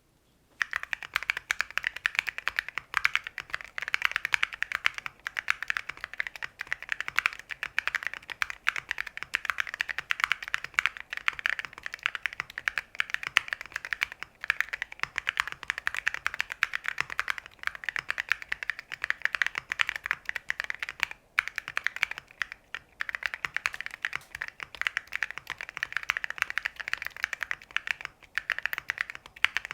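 Fast, continuous typing on a mechanical keyboard fitted with Cerakey ceramic keycaps: a dense run of sharp, bright clacks that begins about half a second in, with a couple of brief pauses past the middle.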